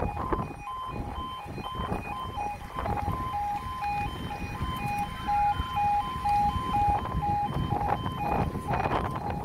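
A railway level crossing's warning alarm is sounding, with two sounders at different pitches beeping about twice a second out of step with each other. Underneath is the low rumble of a diesel passenger train approaching the crossing.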